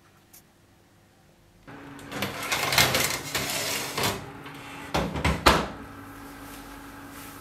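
A metal baking tray slid onto an oven's rack rails, scraping and clattering, then the oven door shut with two sharp knocks about five seconds in, over the steady hum of the running oven. The first second and a half is near silence.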